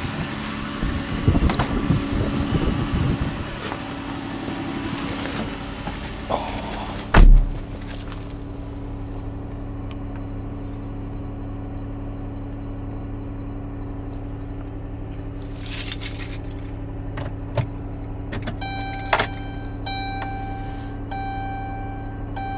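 2015 Dodge Grand Caravan's 3.6-litre V6 running at a raised cold idle at −24 °C. Handling noise and clicks at first, then a door thumps shut about seven seconds in. After that the engine is a steady hum heard from inside the cabin, and near the end a dashboard chime beeps repeatedly.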